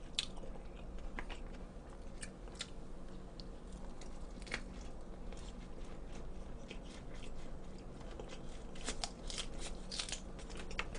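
Close chewing of a lettuce wrap of cold jokbal: crisp crunches and wet mouth clicks in an uneven patter, thickest near the end.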